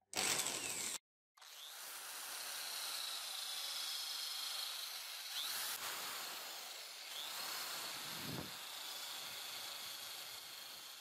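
Pink grinding stone spinning in a drill chuck, grinding the steel of a rusty knife blade to reshape its chipped, broken edge: a steady grinding hiss with a faint high whine. A short louder burst cuts off about a second in, and the grinding fades near the end.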